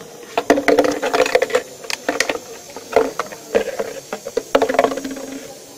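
Thin plastic water bottle crinkling and clattering against a wooden chute as it is pushed in by hand, a rapid irregular run of crackles and knocks.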